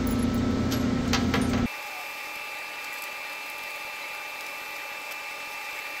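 Steady workshop background hum with a few light clicks of wiring and metal being handled. After about two seconds the hum cuts off abruptly, leaving a quieter room with a faint steady high-pitched whine.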